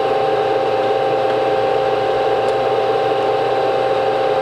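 Toolmex TUR 630A engine lathe running steadily, its headstock and feed gearing giving a constant whine of several steady tones over a mechanical hum, with the carriage power feed engaged in reverse.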